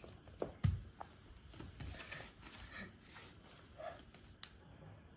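Soft thumps and shuffling of bare feet and knees on a wooden floor, with two low thumps about half a second in.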